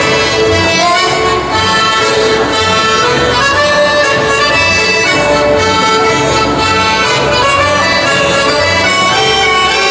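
Friulian folk dance tune played live by a small band with a double bass, held melodic notes over a steady, pulsing bass beat.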